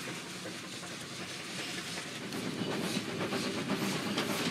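Narrow-gauge steam locomotive hauling coaches, its exhaust beating about three times a second over the rumble of the train on the track. It grows louder about two seconds in.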